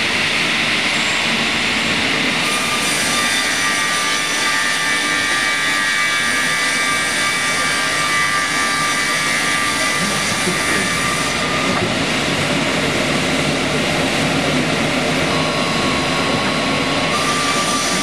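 Double-blade circular sawmill running loud and steady, its saw blades whining; the whine changes character a few seconds in and again about eleven seconds in.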